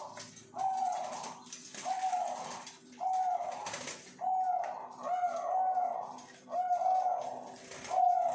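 Zebra doves (perkutut) from breeding stock cooing in their cages: short, clear coo notes about once a second, with a faint steady hum underneath.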